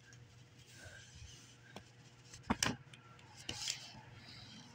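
Faint handling noise of a paper DVD cover insert held in the hand, with two quick clicks about halfway through, over a low steady hum.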